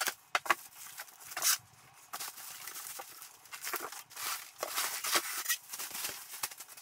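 Plastic and foam packing wrap rustling and crinkling in irregular bursts as it is pulled off a computer monitor in its styrofoam packaging, with a couple of sharp clicks near the start.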